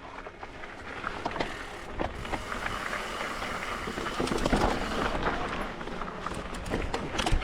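Mountain bike rolling fast down a dirt trail: tyres on dirt and rock, with many scattered clicks and knocks from the bike rattling over the bumps, and a low rumble of wind on the microphone.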